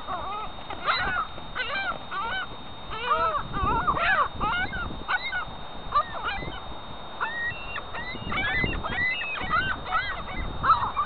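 A flock of gulls calling over one another as they are fed, with many short rising-and-falling cries overlapping almost without a break.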